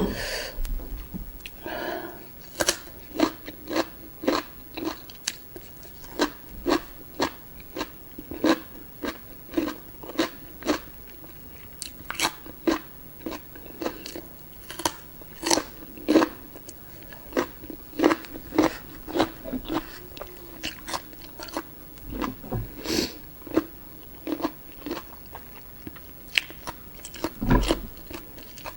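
A person chewing food close to the microphone, mouth sounds with a crisp click or crunch about twice a second, steady and rhythmic, with a few heavier bites near the end.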